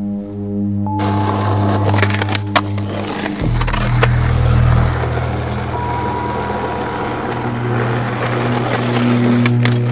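Skateboard wheels rolling on concrete over background music with a steady bass line, with sharp clacks of the board a couple of times, about two and a half and four seconds in.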